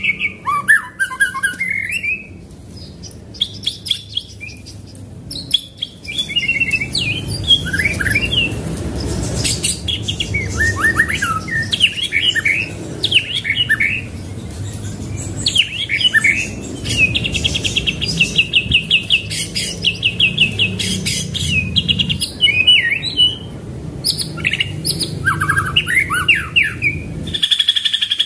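A white-rumped shama singing: a string of varied whistled phrases and chirps, with a fast, even rolling trill for a few seconds in the middle. A low steady hum runs underneath. Near the end the sound changes to a steady, fast pulsing trill.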